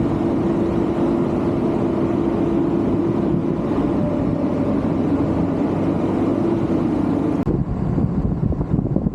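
Excavator engine running steadily, a constant hum over a low rumble. About seven and a half seconds in the sound changes abruptly to a rougher, uneven rumble.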